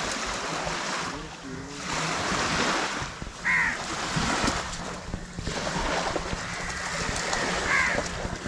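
Rushing noise of wind and surf that swells and fades every few seconds, with a short harsh bird call twice, about three and a half and eight seconds in.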